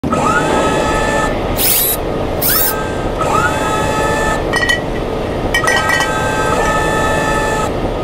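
Factory machinery running, with motors whining up to a steady pitch several times, two short sharp hisses, and clusters of metallic clicks and clanks.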